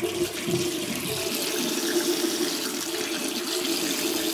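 Water from a bathroom sink tap running steadily into the basin, an even rushing with a steady low hum through it.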